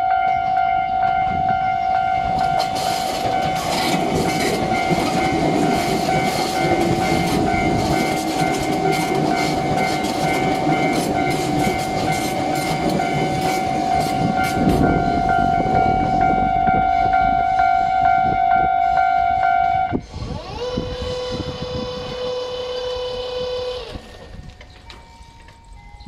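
A level-crossing warning alarm sounds steadily while a Tobu 200-series limited express runs past close by, its wheels clattering over the rail joints. The alarm cuts off abruptly about 20 s in, and a different, lower steady tone follows for about four seconds.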